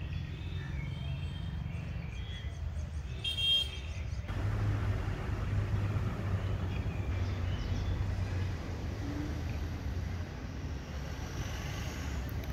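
Outdoor road-traffic noise with a steady low rumble, and a short vehicle horn toot about three and a half seconds in.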